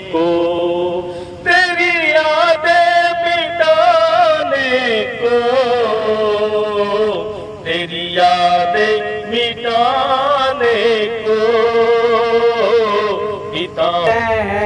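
A voice singing a drawn-out, ornamented melody without clear words, long notes held with heavy vibrato and sliding between pitches.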